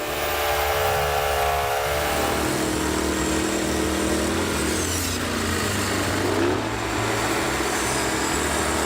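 A powered wood saw's motor running while it cuts a log. Its pitch sags over the first couple of seconds, then holds fairly steady, with a brief shift in pitch about two-thirds of the way through.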